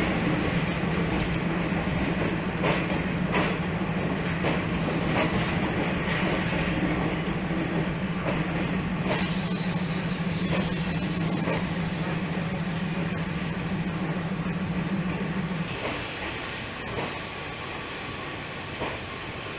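Passenger train moving through a station, wheels clicking over rail joints with a steady low hum. About halfway through a high hiss starts, and the hum stops near the end as the sound eases off.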